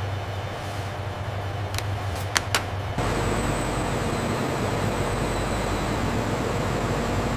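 Steady factory machinery and ventilation hum, with a few sharp clicks shortly before it cuts suddenly, about three seconds in, to louder, denser machine noise with a thin high whine.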